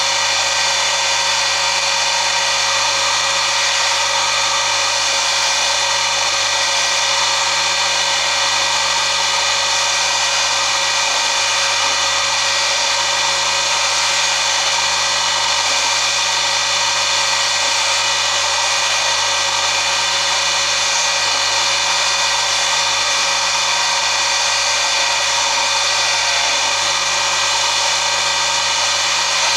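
Jewellery polishing motor running with its buffing wheel spinning, a steady whir with a low hum, as a silver pendant is pressed against the wheel to polish it.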